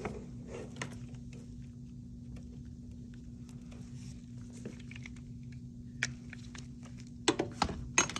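Gloved hands handling a dental typodont on its metal articulator and the steel hand instruments beside it: faint scattered taps, then a quick cluster of sharp clicks and knocks near the end as the typodont is lifted off the table. A steady low hum runs underneath.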